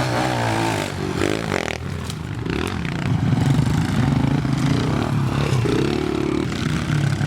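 Small four-stroke pit bike engine revving, its pitch rising and falling with the throttle.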